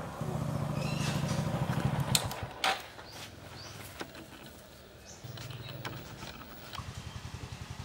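Motorcycle engine running as the bike is ridden, with a steady low pulsing beat that eases off around the middle and picks up again toward the end. A couple of sharp knocks come a little over two seconds in.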